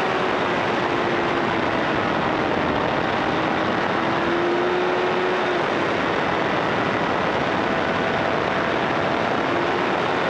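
Motorcycle at speed: heavy wind rush over the fairing-mounted camera, with the engine's note faint beneath it, rising a little about four seconds in and then dropping back.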